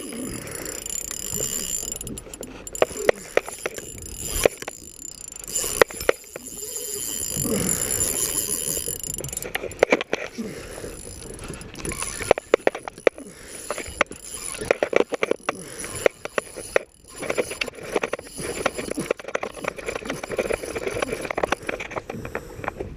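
Fishing reel being wound in, its mechanism clicking, with scattered knocks.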